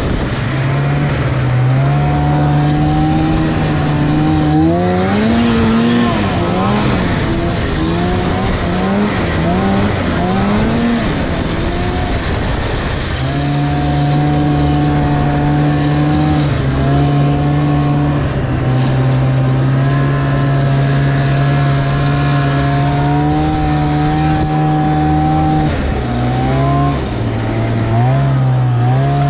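Snowmobile engine running hard. Its pitch rises and falls several times in the first ten seconds or so, then holds steady at a constant speed, with a brief dip near the end.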